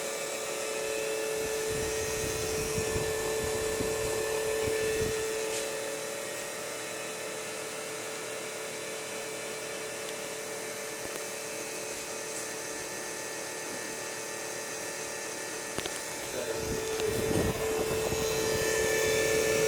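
Electric honey extractor's motor running with a steady whine. The whine drops away about five seconds in and comes back up near the end.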